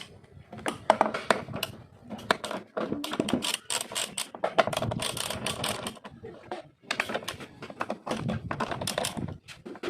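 Ratchet wrench with a 10 mm socket clicking in quick runs as bolts are loosened, with a few louder knocks in between.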